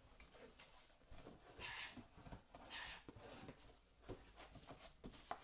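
Cardboard box being opened by hand: flaps lifted and folded back, with irregular scraping and rustling and light knocks.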